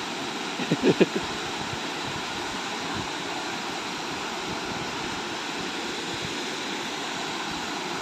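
Small waterfall rushing steadily into a rock pool, with a few brief louder sounds about a second in.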